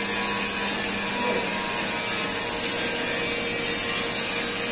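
Electric arc welding on steel beams, crackling and hissing steadily, over a steady hum.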